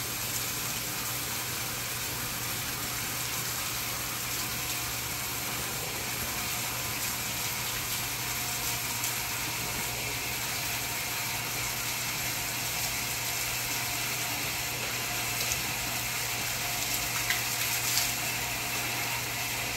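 Steady hiss of water running from a garden hose over a wet dog's coat and splashing on the concrete floor, with a low steady hum underneath.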